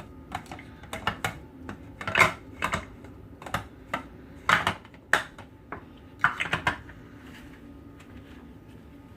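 Irregular light clicks and knocks of kitchen containers and utensils being handled while potato pieces are readied for chopping. The knocks thin out near the end.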